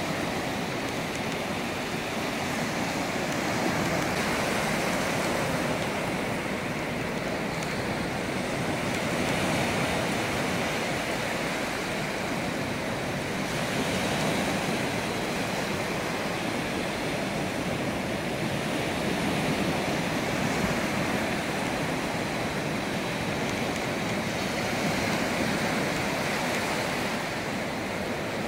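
Small sea waves breaking and washing up a sandy beach: a steady rush of surf that swells and eases every few seconds.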